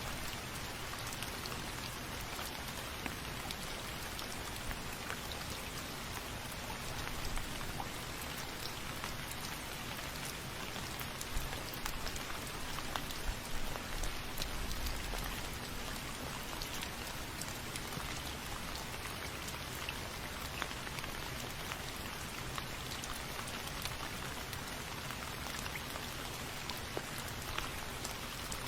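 Steady rain falling, with many individual drops pattering sharply on a surface.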